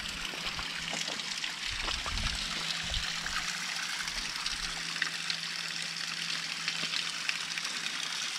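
Thin waterfall spilling down a moss-covered rock face: a steady trickle and splash of water, dotted with many small drips.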